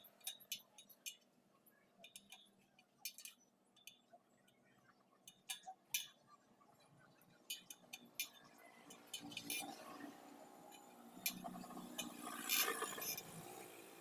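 Light metallic clinks at irregular intervals as the wire spokes of an old motorcycle wheel are worked on and tightened. Denser handling and rattling follows near the end.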